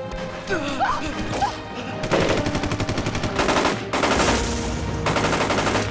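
Rapid automatic gunfire in two long bursts, starting about two seconds in, over a film score. There is a shout or cry in the first second or two.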